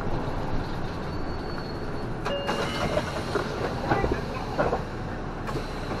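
City bus cabin while driving: steady engine and road noise, with short clicks and rattles a few times.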